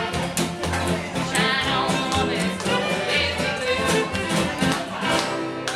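Live fiddle and acoustic guitar playing an upbeat tune together, the guitar strummed in a steady rhythm under the bowed fiddle melody.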